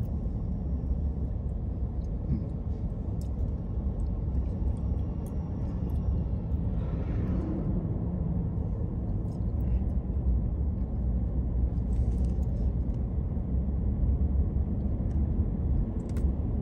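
Car running at low speed, heard from inside the cabin as a steady low rumble of engine and road noise.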